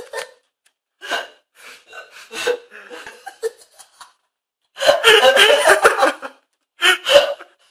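A young man laughing in fits: a few quieter giggles in the first seconds, then a loud burst of laughter about five seconds in and a short one near the end.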